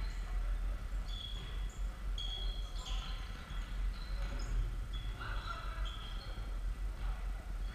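Sneakers squeaking on a hardwood sports-hall floor as futsal players run and turn: many short, high squeaks scattered throughout, over a steady low hum.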